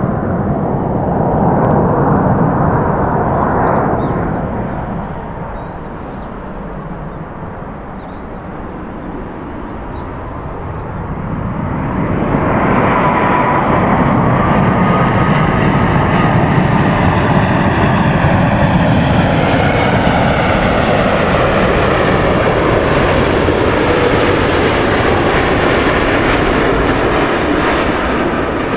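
Airbus A380 jet engines on landing approach: a loud, steady jet rumble that eases a few seconds in and swells again about twelve seconds in as the aircraft comes close, with whine tones bending in pitch as it passes.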